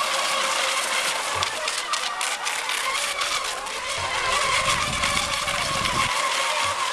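Several electric FSR-E racing model boats running flat out, their motors giving a steady, high, layered whine over a hiss of spray and wind.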